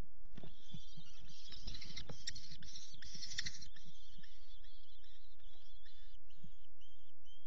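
Young common kestrels calling shrilly in a wooden nest box, with thumps and scuffling of birds moving on the floor during the first few seconds. The calling then settles into short, repeated calls about twice a second.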